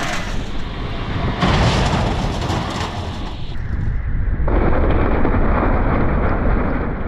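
A giant welded blender's spinning blade smashing into a boat dropped into its jar: a loud, continuous crashing and grinding rumble, the blender working under heavy load as it chews the hull.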